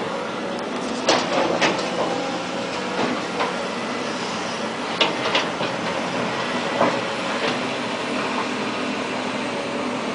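Steady outdoor city background noise, with a few scattered short clicks and knocks.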